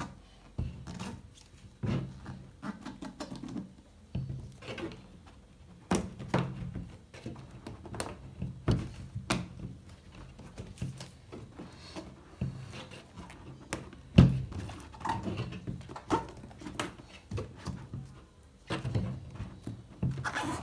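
Hands handling a MacBook Air's white cardboard retail box: irregular taps, knocks and rubbing of fingers on the box, with a louder thump about 14 seconds in.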